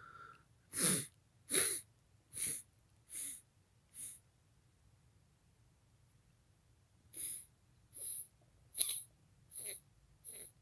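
A person's short, sharp breaths, about ten in two runs of five, as they work up to a sneeze.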